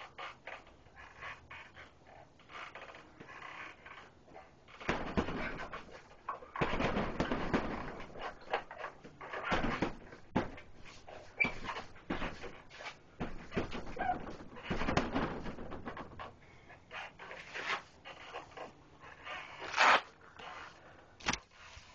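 Punches thudding on a hanging heavy punching bag, mixed with a person's hard panting breaths, in irregular flurries. One louder burst comes near the end.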